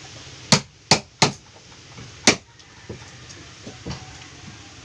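Claw hammer striking a wood chisel, cutting into hard timber in a wooden boat's hull: three quick blows about a second in, then one more about a second later.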